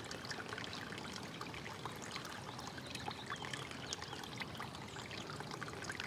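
Rainwater running and trickling in a shallow sheet over wet pavement, with a steady dense patter of small drips and splashes.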